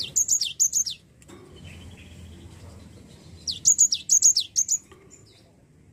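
Cinereous tit (gelatik batu) singing: two quick phrases of high, downward-sweeping whistled notes, the first right at the start and the second about three and a half seconds in.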